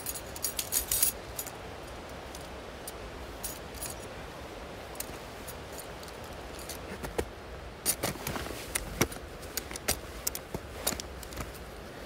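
Steel crampons clinking and jangling as they are handled and strapped onto mountaineering boots, in two spells of sharp metallic clicks: one in the first second and another from about seven seconds in.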